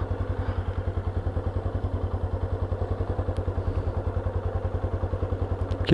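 Motorcycle engine idling steadily, an even pulse of about a dozen beats a second that holds the same rate throughout.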